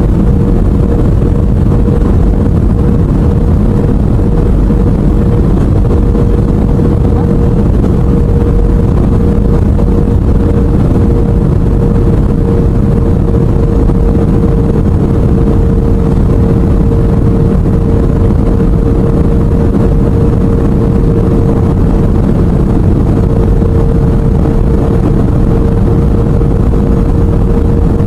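Airliner cabin noise beside the wing: the jet engines and airflow make a steady, loud roar with one constant hum held over it, unchanging throughout.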